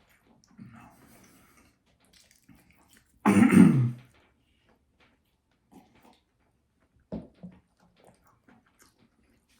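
A man's vocal throat noises while eating hot-sauced nuggets, with one loud, roughly one-second grunt-like outburst falling in pitch about three seconds in and smaller scattered noises around it: strain from the chili heat during a spicy-food challenge.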